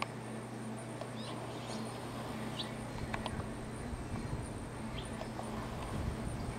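Outdoor ambience with scattered short, high bird chirps over a steady low hum. From about three seconds in, a low rumble joins it.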